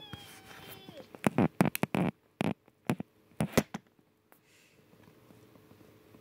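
A run of loud knocks and bumps from a phone camera being grabbed and handled, coming quickly one after another for about two and a half seconds. Before them, at the start, there is a drawn-out call that falls in pitch.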